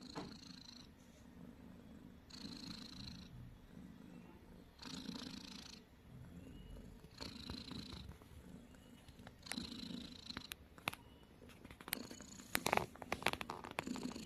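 Cat snoring: a noisy breath about every two and a half seconds over a steady low rumble. A run of sharp clicks and knocks comes in the last few seconds and is the loudest sound.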